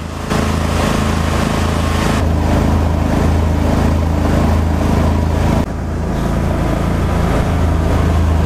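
Mud Buddy Sport HDR 37 EFI mud motor's air-cooled V-twin running steadily at speed, pushing a flat-bottom boat on plane. The engine note shifts abruptly a few times and dips briefly a little past halfway.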